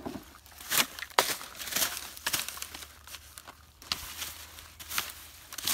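Plastic bags and dry litter rustling and crackling as a stick pokes and rakes through a pile of trash, in irregular bursts with a few sharper crackles.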